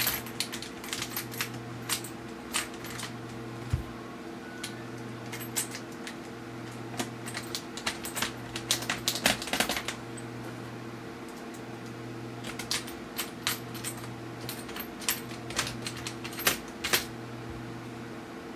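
Scattered small clicks and ticks of a screwdriver and small screws being fitted around the plastic LCD bezel of a laptop, busiest in the middle and near the end, over a steady low hum.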